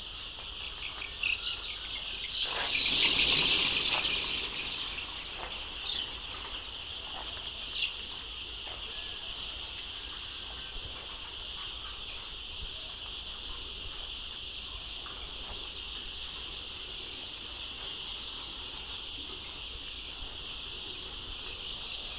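A large flock of young layer chicks peeping all together in a steady high chorus, which swells louder about three seconds in. A few short knocks sound in the first eight seconds.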